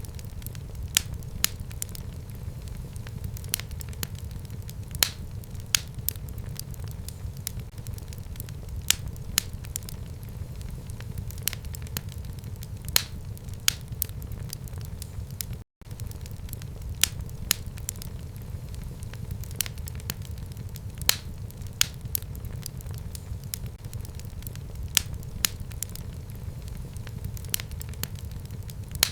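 Wood fire burning in a home fireplace: a steady low rumble of flames with sharp crackles and pops at irregular intervals, a few each second. There is a split-second dropout to silence about halfway through.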